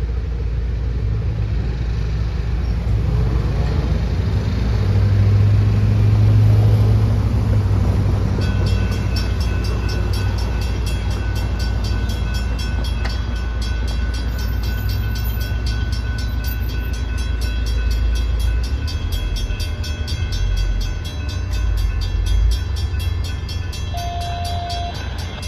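Road traffic rumbling over the grade crossing. About a third of the way in, the railroad crossing bell starts ringing rapidly and keeps on, warning of an approaching train.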